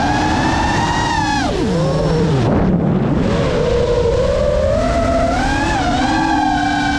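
Geprc Mark 5 FPV quadcopter's brushless motors whining, a stack of tones that move together. About a second and a half in the pitch falls steeply as the throttle is cut for a dive, then climbs back from about three seconds on as the throttle comes up to pull out near the ground.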